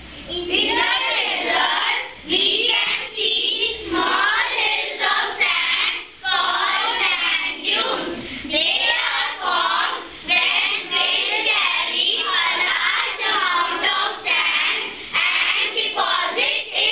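A class of young children singing together in unison, phrase after phrase with short breaks between.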